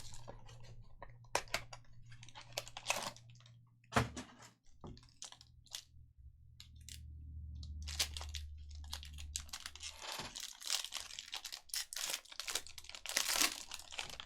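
Baseball card packs being opened and gone through: sharp clicks of cards being flicked and shuffled, and wrappers torn and crinkled. The crinkling gets denser in the second half.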